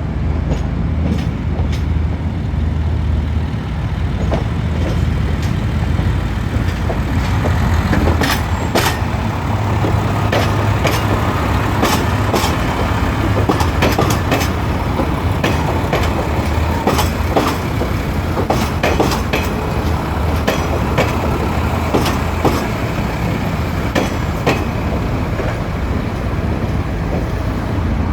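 Shikoku Mannaka Sennen Monogatari diesel railcar moving slowly with a steady low engine rumble. Its wheels click and knock irregularly over the track.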